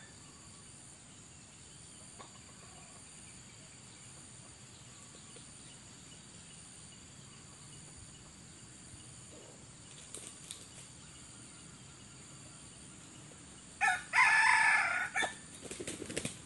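A red junglefowl rooster crows once about fourteen seconds in, a short, loud crow lasting about a second. Scattered flapping and rustling follow near the end. Before the crow there is only a faint, steady, high-pitched background drone.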